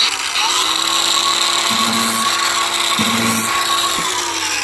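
DeWalt cordless angle grinder spinning up with a rising whine, then running steadily while it grinds the edge of a hydrofoil tail wing to taper it; the load comes on twice, briefly, as the disc bites. Near the end the grinder starts to spin down.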